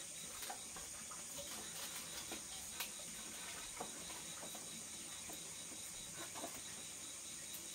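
Night insects trilling steadily at a high pitch, with scattered faint clicks and taps.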